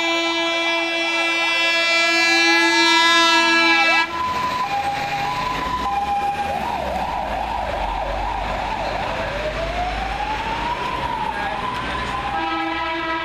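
Fire engine siren cycling through its tones: a two-tone hi-lo, a fast yelp, then a slow rising and falling wail. A loud steady horn blares over it for about the first four seconds and again near the end.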